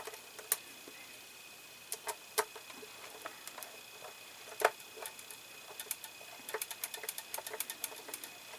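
Small screwdriver driving a tiny screw into a plastic scale-model part: irregular light clicks and ticks of metal and plastic, coming thicker near the end.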